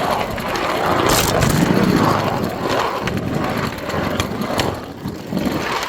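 Railroad turntable deck being turned on its rollers, which have just been freed and lubricated: a continuous rolling rumble with scattered clicks and knocks.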